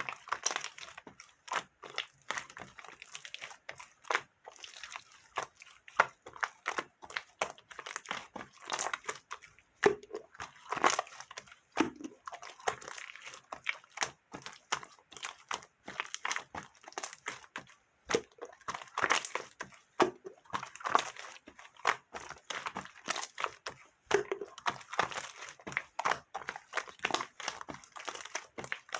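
Pink marbled slime being squeezed and rolled into a ball by hand, giving a continual run of irregular sticky clicks and small pops.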